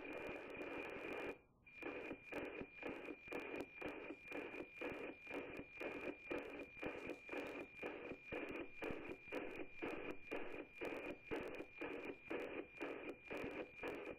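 NOAA-18 weather satellite's APT image signal, FM-demodulated by the receiving radio: a steady high tone over hiss, ticking evenly about twice a second as the picture lines come in. It drops out briefly about a second and a half in, then ticks on.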